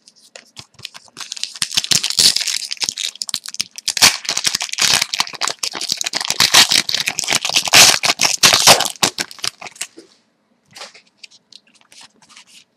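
Foil wrappers of Score hockey card packs being torn open and crinkled: a dense crackling rustle for about eight seconds, easing off near the end into a few soft clicks as the cards are handled.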